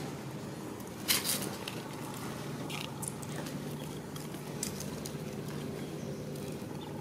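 Steady outdoor background with a low hum, broken by a few brief crackling rustles; the loudest comes about a second in.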